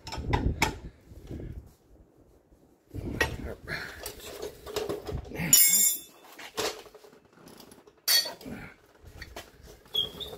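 Metal hand tools being handled against the front suspension parts: a wrench and other tools clink and knock in a string of separate sharp clinks. The loudest is a brief rattling clatter about five and a half seconds in.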